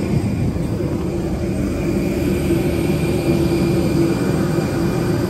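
Airport apron shuttle bus running, a steady engine drone and rumble with a faint steady high whine above it.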